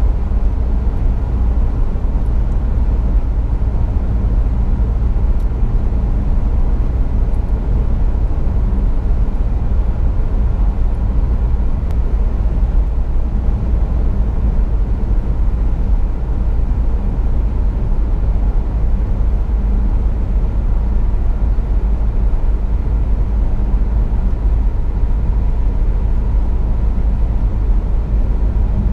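Steady low rumble of a car cruising at motorway speed, heard inside the cabin: road and tyre noise with the drone of the car itself.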